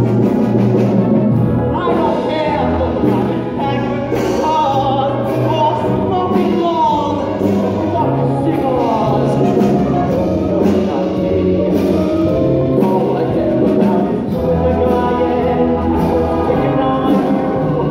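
Stage-musical finale number: singing over band accompaniment with a steady beat, heard from the audience seats.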